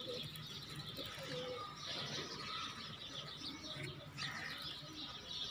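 Domestic pigeons cooing softly, with faint bird chirping.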